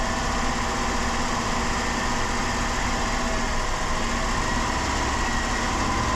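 2007 Dodge Caravan's 3.3-litre V6 running steadily, heard close up in the engine bay, while intake cleaner already drawn in burns off through the engine.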